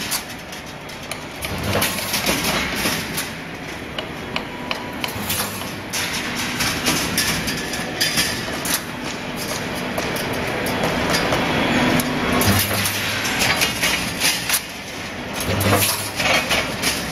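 Automatic roll wire mesh welding machine running, with many sharp metallic clicks and knocks over a steady mechanical din, and a few heavier thuds.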